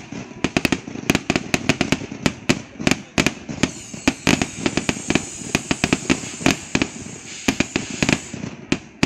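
Fireworks going off in a dense, rapid string of sharp bangs and pops, several a second, with a high fizzing hiss through the middle.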